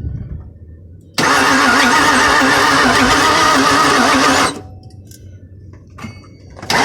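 2002 Ford Mustang GT's 4.6-litre V8 being cranked by its starter motor with a pulsing, wavering churn for about three seconds without catching, then cut off. It is cranked again near the end: a no-start.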